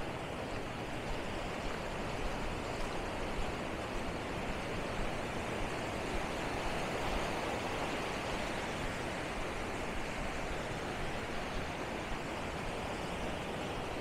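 Steady rushing wash of small waves breaking along a sandy shore, mixed with wind buffeting the microphone.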